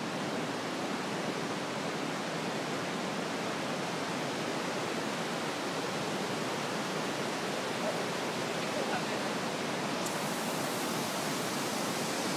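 Fast, steep mountain stream rushing over rocks where it pours into the rock, a steady, unbroken noise of fast-flowing water.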